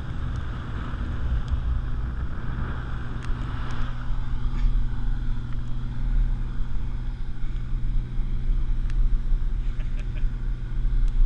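Wind buffeting the action camera's microphone high in the air under a parasail: a low rumble whose loudness flutters up and down, with a faint hiss in the first few seconds.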